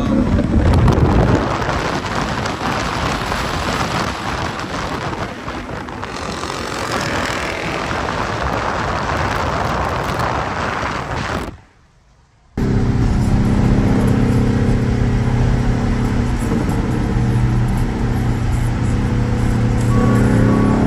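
Car engine noise mixed with a dense rush. About halfway through, the sound cuts out for a second, then a car engine idles steadily with a low, even tone.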